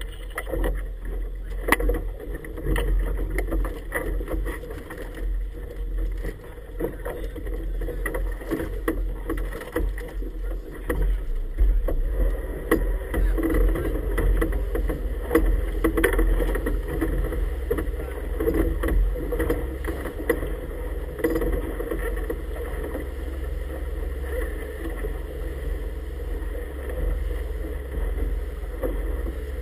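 Inflatable boat under power on choppy water: a steady low rumble with irregular slaps and splashes of the hull on the waves.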